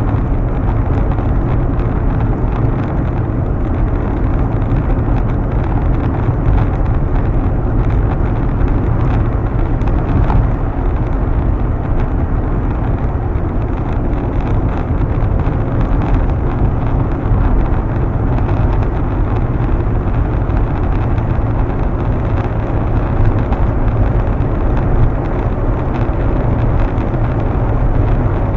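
Steady low rumble of a car cruising at highway speed, heard from inside the cabin: road, engine and wind noise running evenly without a break.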